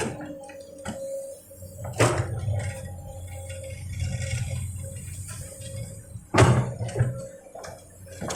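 Komatsu PC200 excavator working, its engine giving a steady low rumble, with two sudden loud noisy bursts about two seconds and six seconds in.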